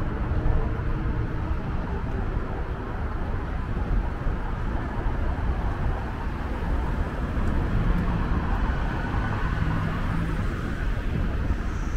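Steady road traffic: cars and their engines running past at a busy city intersection, an even rumble with a vehicle's engine hum standing out briefly about two thirds of the way in.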